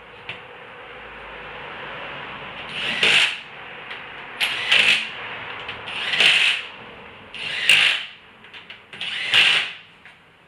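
A power tool spinning lug nuts on a car wheel: five short bursts about a second and a half apart, each building up and then stopping, one for each nut.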